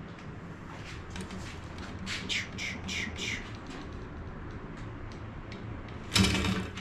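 A bird calling: a quick run of about five short, falling chirps about two seconds in. A loud brief clatter comes near the end.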